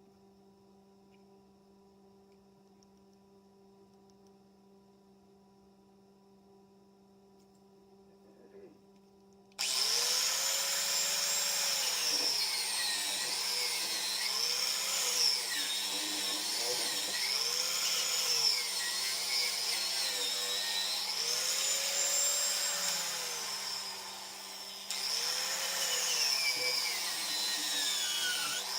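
Faint steady electrical hum for about ten seconds, then a handheld power tool starts suddenly and runs loud on metal, its pitch rising and falling over and over as it is pressed on and eased off, with a brief quieter spell near the end.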